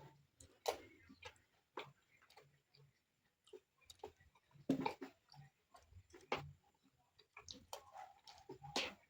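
Eating sounds from a plate of rice and bean stew: irregular clicks of a utensil against the plate, with soft chewing in between.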